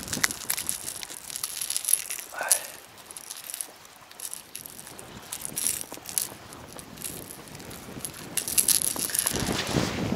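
Scattered small clicks and rattles of a crankbait and its hooks being handled while a perch is unhooked by hand, with a louder rustle near the end.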